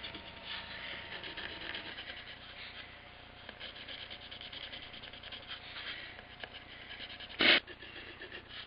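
Coloured pencil scribbling quickly back and forth on plywood, shading in a wood-burned picture: a fast scratchy rasp of many short strokes. A brief louder sound breaks in about seven and a half seconds in.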